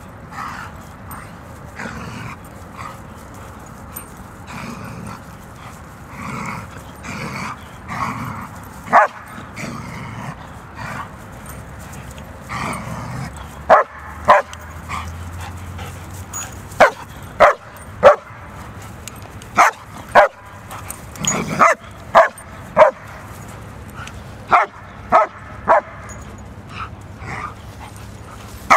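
German Shepherds play-fighting: softer whining vocal sounds in the first half, then a dozen or so short, sharp barks from about halfway through.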